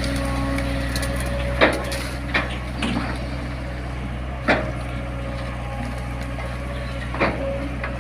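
Long-arm excavator's diesel engine running steadily, with several sharp knocks standing out above it.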